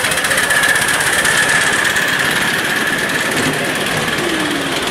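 Miniature railway locomotive running past on a raised track, with a rapid mechanical beat and a steady high whine that fade as it draws away.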